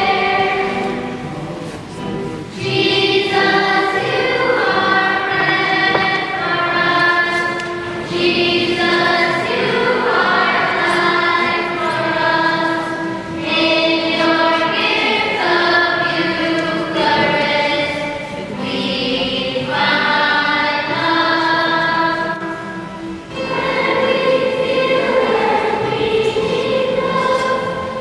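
Choir singing a hymn in sustained, held notes, with brief breaks about two seconds in and again near the end.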